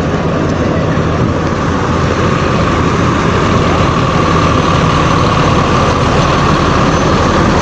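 Large tour bus diesel engine idling close by, a steady low running with a steady whine above it.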